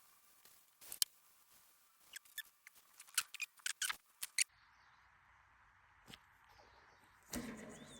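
A run of irregular, fairly faint sharp clicks and taps from hand tools and small metal parts being handled during disassembly of an old lathe, stopping about halfway through; after that only a faint hiss.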